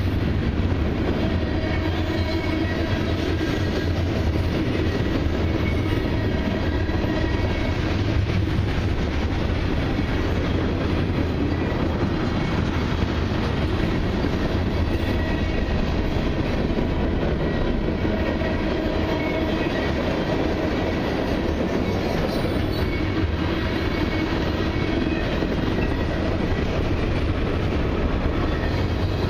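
Freight cars of a long mixed freight train (covered hoppers, tank cars and boxcars) rolling past close by: steel wheels running over the rails in a steady rumble that keeps an even loudness throughout.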